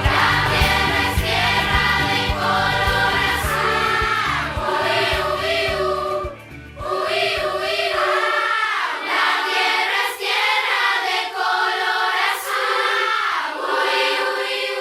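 Background song with a choir of voices singing over a bass beat; about eight seconds in the beat drops out and the voices carry on alone.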